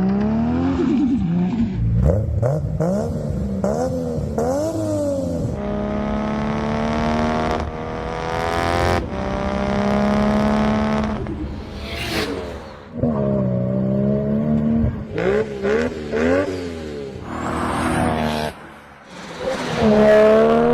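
Nissan Skyline GT-R's RB26 straight-six with a single-turbo HPS Fabwork kit revving hard, pitch climbing and dropping through repeated throttle pulls with a long held pull in the middle. A brief high hiss comes about twelve seconds in.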